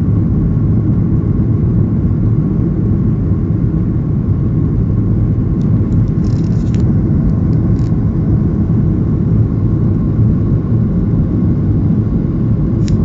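Steady low rumble of a Boeing 737's engines and airflow heard inside the passenger cabin in flight, with a faint steady hum above it. A few faint brief clicks come about halfway through and again near the end.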